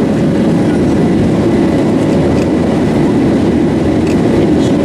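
Boeing 737 engine and cabin noise: a loud, steady rumble that holds level without a break, with a faint steady whine above it.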